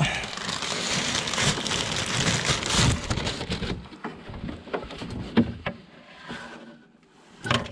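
Handling noise: dense rustling and crackling for about four seconds, then scattered clicks and knocks as cables and equipment are moved about.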